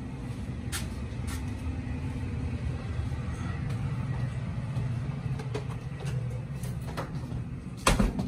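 Footsteps and light knocks on wooden stairs over a steady low rumble, then a loud thump near the end as a door is pushed open.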